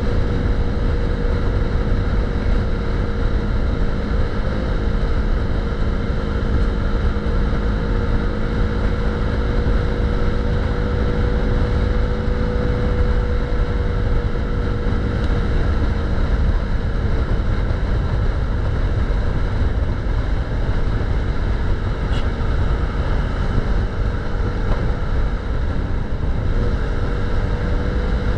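KTM 390 single-cylinder motorcycle engine running at a steady cruise on the road, its pitch easing down a little about halfway through and climbing again near the end, under a heavy rumble of wind and road noise.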